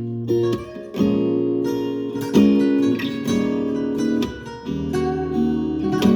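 Solo acoustic guitar improvising, plucked notes and chords ringing out one after another.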